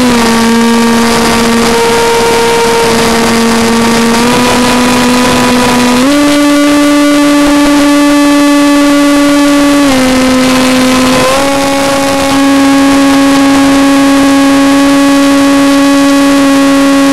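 Electric motor and pusher propeller of a Multiplex FunJet Ultra RC jet in flight, heard close up from a camera on board: a loud, steady whine that steps up and down in pitch with the throttle. It rises about 4 and 6 seconds in, drops about 10 seconds in, and rises again about a second later.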